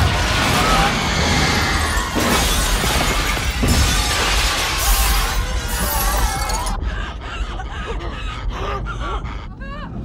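Film sound effects of a decompression blowout: glass shattering and a loud rush of air with flying debris, over dramatic music. About seven seconds in the rushing noise falls away, leaving cries and strained voices over a low rumble.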